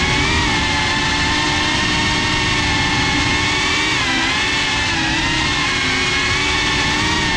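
FPV drone's electric motors and propellers whining steadily, recorded on its onboard GoPro. The pitch dips and recovers briefly about four seconds in.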